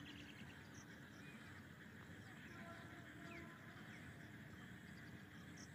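Near silence: faint outdoor ambience with a few scattered faint bird calls.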